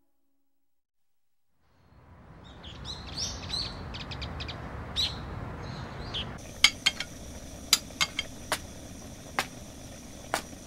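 About two seconds of silence, then a soft outdoor ambience with birds chirping. From about six seconds in, a steadier indoor room tone with a series of sharp, irregular clacks.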